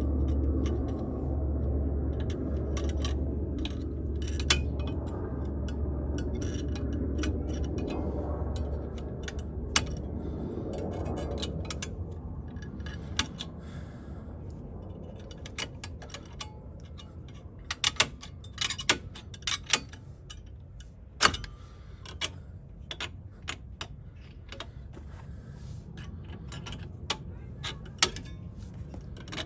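Small metal brake parts clicking and clinking as they are worked into place by hand on a car's front brake, in scattered sharp taps that come thicker in the second half. A low steady hum fades out over the first several seconds.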